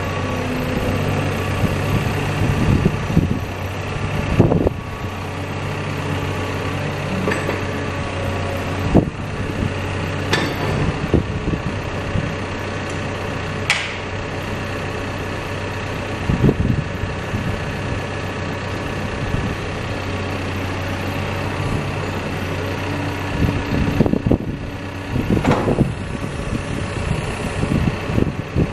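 Caterpillar backhoe loader's diesel engine running steadily, with a dozen sharp knocks and clunks scattered through, thickest near the end.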